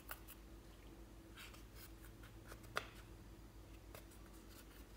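Plastic spatula scraping pressed eyeshadow out of a makeup palette: faint, scratchy strokes with one sharper click a little past halfway.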